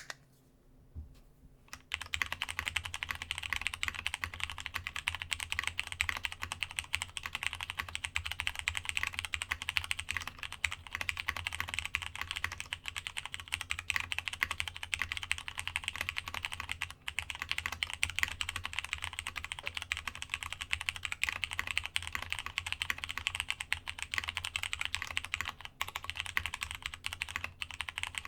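Continuous fast typing on a Masjewerke K-III custom mechanical keyboard with plateless Cherry MX Brown switches, DCS keycaps and a polycarbonate internal, on a desk mat over a solid wood desk. The typing starts about two seconds in, after a couple of isolated key clicks.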